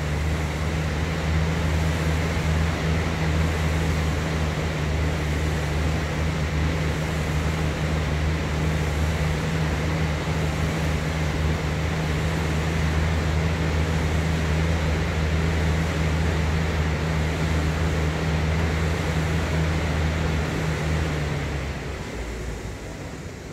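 Concept2 SkiErg's flywheel fan whirring steadily under continuous pulling, a low hum with an air rush over it. The hum fades away near the end.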